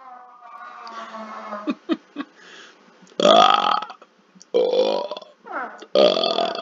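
A man's deliberate burps, made by swallowing air into the gut: three loud burps about three, four and a half and six seconds in, the last one the longest, after a quieter falling sound trailing off at the start.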